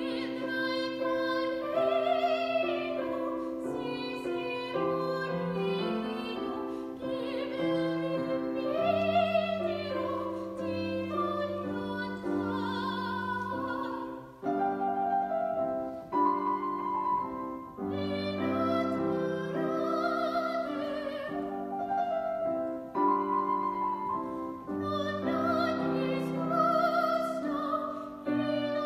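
Classical singing with vibrato over piano accompaniment, in phrases with short breaths between them.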